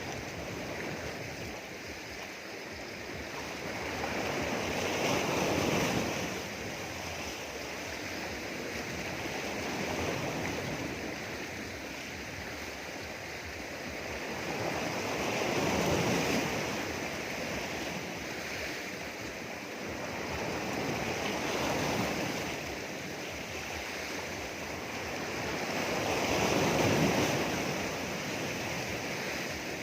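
Sea waves breaking and washing against rocks, swelling and easing in repeated surges about every five or six seconds.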